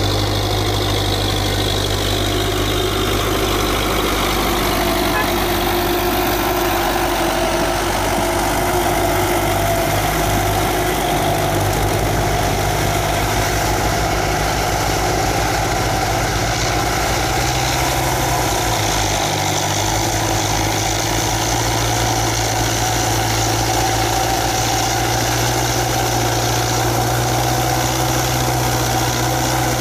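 Belarus 892.2 tractor's turbocharged diesel engine running steadily under load while pulling a disc plough through the soil.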